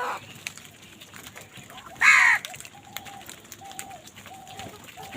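A crow gives one loud, harsh caw about two seconds in, just after the end of another call at the very start. A faint short note repeats about every two-thirds of a second in the background.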